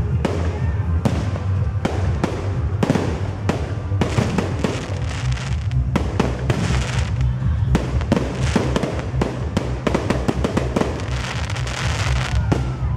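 Fireworks display: aerial shells bursting one after another with sharp bangs, and dense crackling glitter showers twice, about halfway through and near the end. Music plays underneath.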